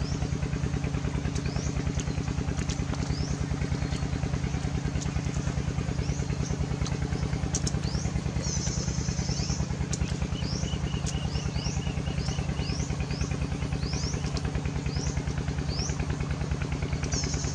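A small engine running steadily with a fast, even pulse, while birds give short rising chirps over it again and again, with a brief trill about ten seconds in.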